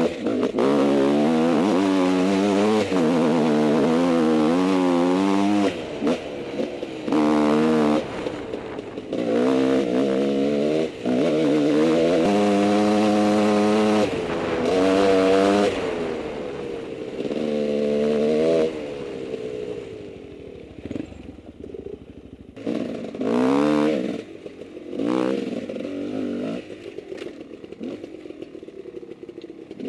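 Husqvarna WR300 two-stroke dirt bike engine revving up and down with the throttle, its pitch rising and falling in repeated pulls, over the rattle and clatter of the bike on rough ground. In the last third it runs mostly quieter off the throttle, with a few short bursts of throttle.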